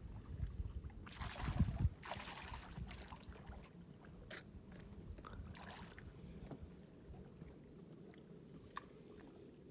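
Faint water sloshing and splashing around a small boat while a hooked smallmouth bass is fought, with a low rumble of wind or handling noise in the first two seconds and scattered light clicks and knocks.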